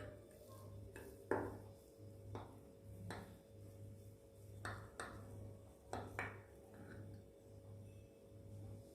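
A knife cutting a sponge cake into pieces, its blade tapping faintly against the dish beneath about seven times at uneven intervals, over a faint steady hum.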